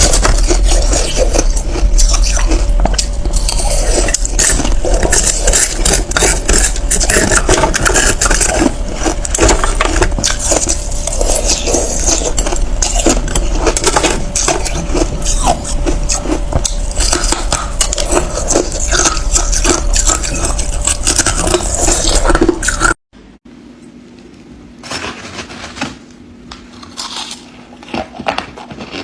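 Ice being bitten and chewed close to the microphone: dense, continuous crunching with a low rumble. About 23 seconds in it cuts abruptly to a much quieter stretch with only scattered crunches.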